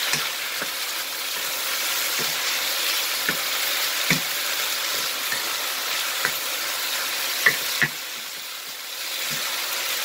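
Diced pork, onion and tomato sizzling steadily in a hot frying pan while a wooden spatula stirs them, with irregular knocks of the spatula against the pan, loudest as a pair near the end. The sizzle eases briefly just before it picks up again.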